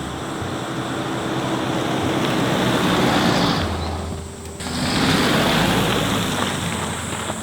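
Vehicles passing by on a road: two swells of rushing noise, one peaking about three seconds in and the next about five seconds in, with a short dip between them.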